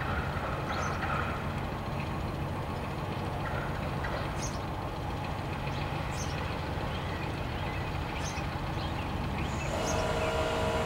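Steady low rumble with faint, short high chirps scattered through it; a steady droning hum with several pitched tones sets in near the end.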